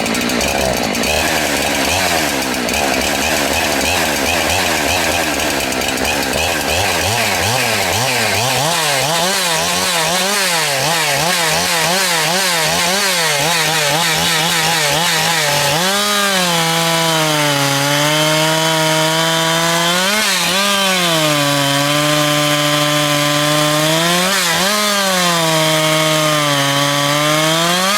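Two-stroke gas chainsaw running at full throttle and cutting discs off a log. The revs rise briefly between cuts, twice, and drop off at the end. The chain is new, with its depth gauges at .025 in, which the cutters say held the cutting speed back.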